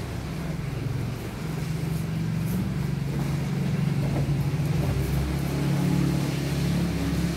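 An engine running steadily, a low hum that gets louder about a second in.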